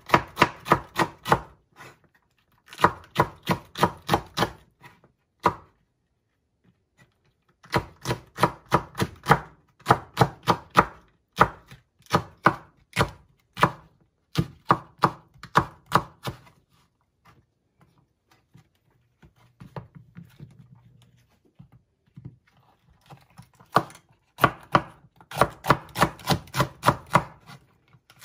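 Kitchen knife chopping green peppers finely on a wooden cutting board: quick, even strokes about four or five a second, in runs broken by short pauses, with a longer pause past the middle.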